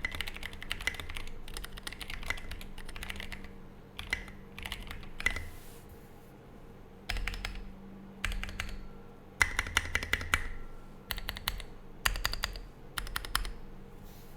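Typing on a custom mechanical keyboard with lubed Zealios V2 tactile switches, SA-profile keycaps and a polycarbonate plate: rapid runs of keystroke clacks broken by short pauses, the longest about midway.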